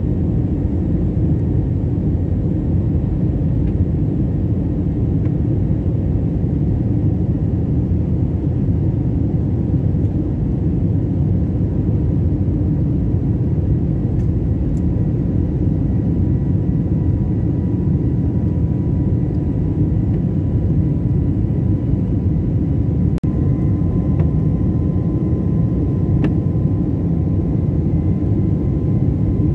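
Jet airliner in flight heard from inside the cabin: a steady, deep rumble of engines and airflow, with a faint steady whine above it. A few small clicks are heard during it.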